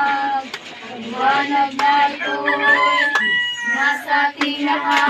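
Voices singing a slow song, with long held notes between sung lines.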